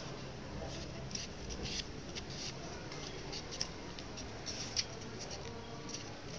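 Paper crinkling and rustling in the hands as an origami model is folded and creased: irregular short crackles, a few sharper ones, over a steady low room hum.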